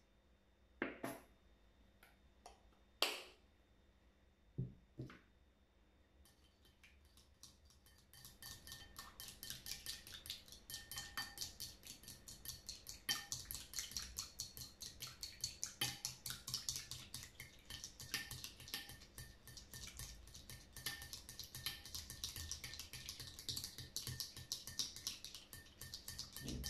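A plastic spatula stirring a wet beer-and-glue slime mixture in a bowl. A few separate knocks and clicks come first, then a fast, continuous run of sticky clicking and scraping from a little over a quarter of the way in.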